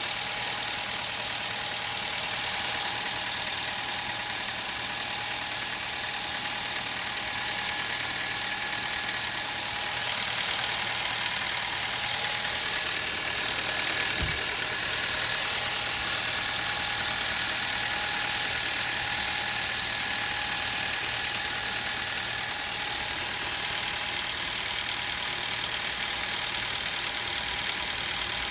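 Hyundai Solaris with the engine running, giving a steady high-pitched whistle that the owner takes for the clutch release (throw-out) bearing. One short low thump about halfway through.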